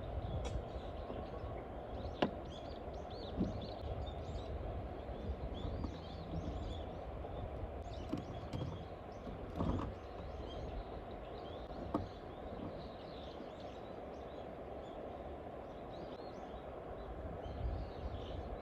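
Outdoor campsite ambience: a steady low rushing noise with many small bird chirps over it, and a few sharp knocks or clicks at scattered moments.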